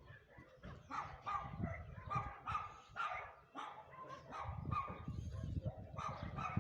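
A dog barking repeatedly in quick runs, about two barks a second, with a short break around the middle.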